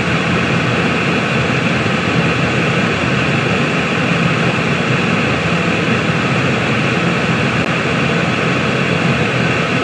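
Steady, unbroken white-noise-style hiss used as a sleep sound, holding the same level throughout with a faint steady hum beneath it.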